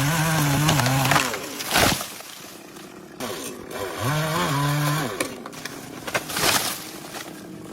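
Chainsaw revved hard twice, each burst about a second long with its pitch dipping and rising, about four seconds apart. In between come two short rushing noises.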